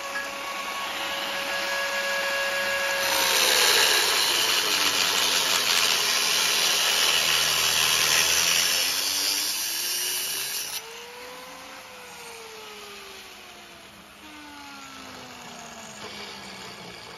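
Angle grinder with a thin cut-off wheel cutting steel tubing. The motor whine drops in pitch as the wheel bites, and a loud grinding hiss runs for about eight seconds and stops suddenly. The whine then climbs back and falls away as the grinder spins down.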